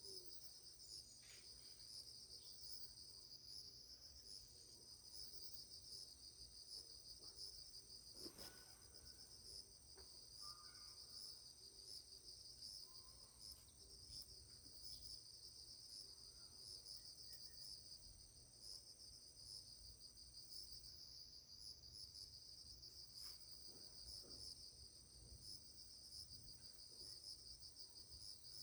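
Faint, continuous insect chirring: a high pulsing drone with a thinner, higher steady whine over it that breaks off briefly twice. There is a faint knock about eight seconds in.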